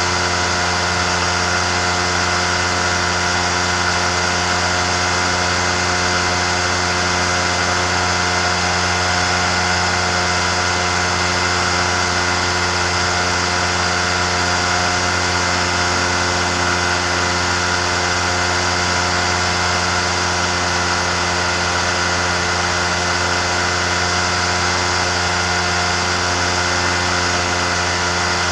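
Amphibious microlight trike's pusher engine and propeller running steadily in level cruise flight, a constant droning note that holds unchanged in pitch and loudness.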